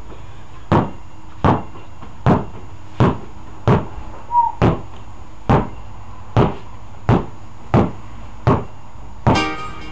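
A red-and-white basketball being dribbled on an indoor floor: a steady run of about a dozen bounces, roughly one every three quarters of a second.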